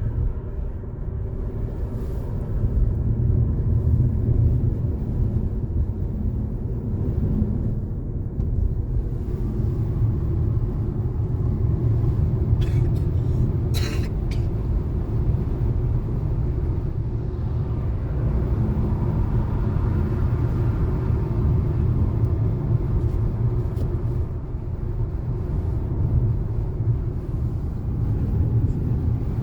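Steady road and engine rumble of a moving car, heard from inside the cabin, with a single brief sharp tick about halfway through.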